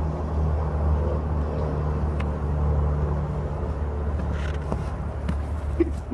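A steady low motor rumble with a constant hum, and a few faint short knocks in the second half.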